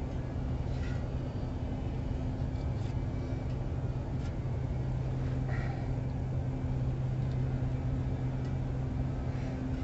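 An engine running steadily, a constant low hum with a few faint clicks over it.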